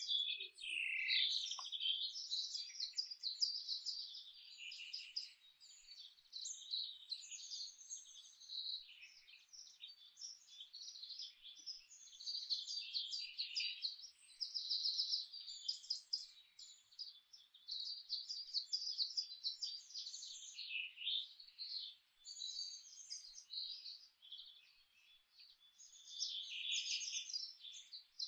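Songbirds chirping and singing: a near-continuous run of short, high-pitched calls and trills, several often overlapping, with only brief pauses.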